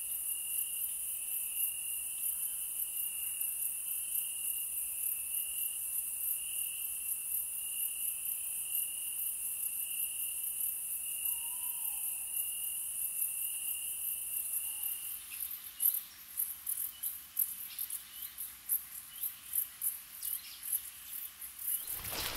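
Night chorus of crickets: a dense, very high chirring with a steady, slightly pulsing trill lower down. After about fifteen seconds the lower trill stops and the high chirring breaks into quick, uneven pulses.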